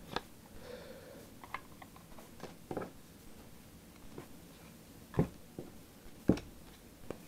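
Trading cards handled in a hand-held stack, giving scattered soft clicks and slides as cards are shifted. The two loudest taps come about five and six seconds in.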